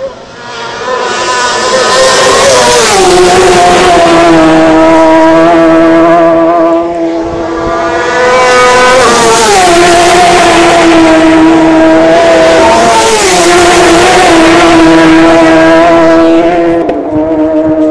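Racing superbike engines at full throttle passing at close range: a very loud, high-revving engine note that drops sharply in pitch several times as machines go by.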